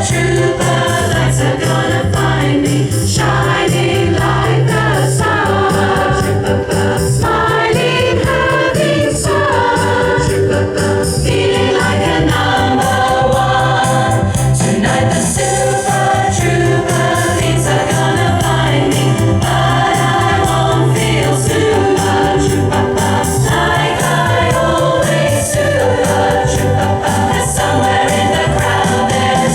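Music with a choir singing over a steady accompaniment.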